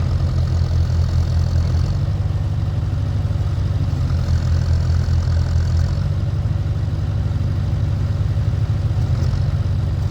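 Diesel engine of an International 3414 backhoe running steadily, with its low drone growing louder twice for a couple of seconds as it works.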